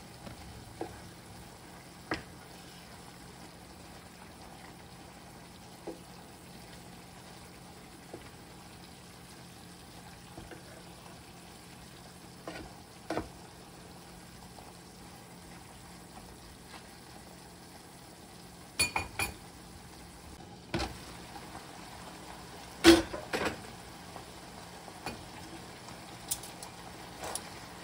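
Soy-sauce braising liquid of chicken adobo simmering and sizzling in a pot as it reduces, with a steady low bubbling hiss. Scattered clicks and knocks of a wooden spatula against the pan come over it, the loudest late on.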